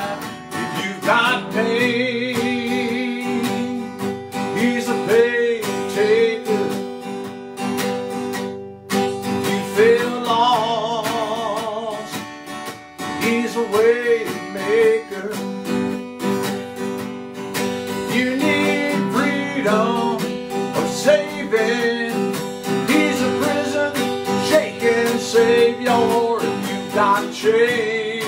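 A man singing a song with wavering held notes, accompanying himself by strumming a Fender cutaway acoustic guitar.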